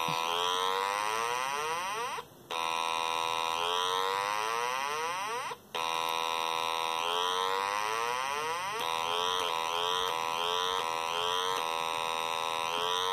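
Electronic simulated ship's-horn sound from a circuit-kit oscillator with a 0.1 microfarad capacitor, keyed by a push switch: a buzzy horn-like tone that slides in pitch while the switch is held. It stops briefly twice, is cut into about five short blasts by quick presses, then is held again near the end.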